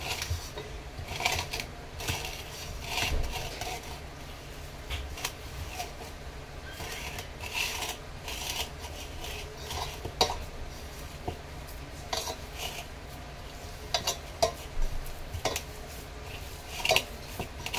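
Hands mixing and kneading a crumbly coconut and milk-powder mixture in a stainless steel bowl, with irregular clinks and scrapes against the metal bowl as it is worked toward a dough.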